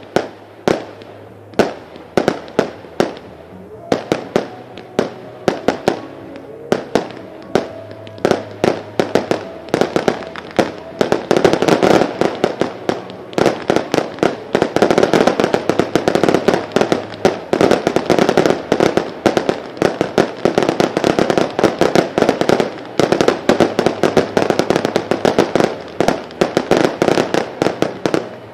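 Consumer fireworks batteries firing a long run of sharp bangs, a few per second at first, then thickening about a third of the way in into dense, rapid crackling volleys.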